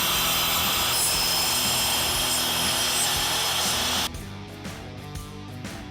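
Paper masking tape pulled off its roll in one continuous rasping hiss as it is wound around a bundle of wooden pieces. It stops abruptly about four seconds in. Background music plays throughout.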